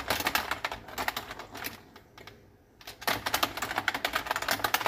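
Typing on a computer keyboard: quick runs of key clicks, a pause of about a second a little before the middle, then more typing.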